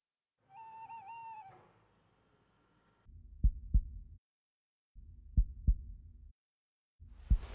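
Heartbeat sound effect: pairs of low thumps, lub-dub, repeating about every two seconds over a low rumble. It is preceded by a short wavering high tone about a second long.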